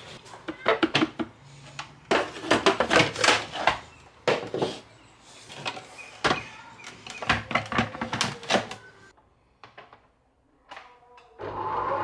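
Clatter and clicks of a plastic food processor bowl and lid being set on the base and locked into place. Near the end the food processor's motor starts and runs steadily, mixing flour, sugar and olive oil into pastry dough.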